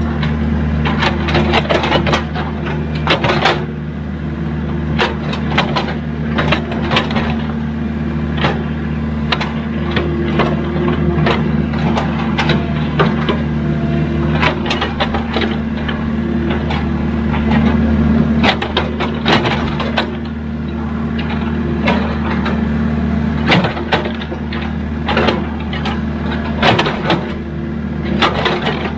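Excavator's diesel engine running steadily under load, with frequent sharp metallic clanks and knocks from the working machine.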